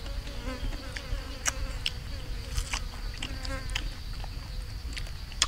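Insects buzzing: a steady high, thin drone with a lower buzzing hum beneath it, broken by scattered sharp clicks.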